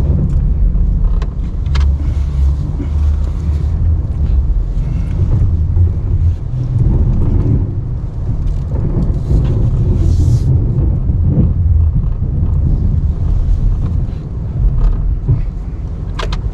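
Ram 1500 Classic pickup truck's engine running under load while pushing snow with an angled plow blade, its deep rumble swelling and easing, with a few short knocks.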